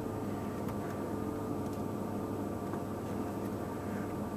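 Steady low hum and hiss with a faint constant tone running through it.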